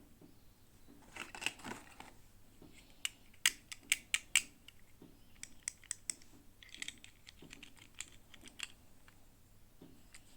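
Small plastic toy pieces and packaging being handled: a string of sharp clicks and taps, with brief crinkling about a second in and again past the middle.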